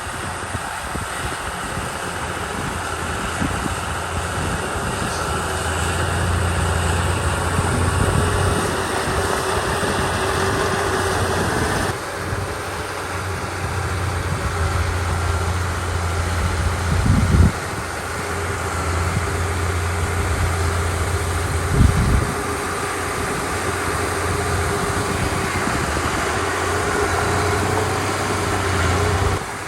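Komatsu D31 bulldozer's diesel engine running steadily as the machine works. Two brief low thumps stand out over it, about halfway through and again a few seconds later.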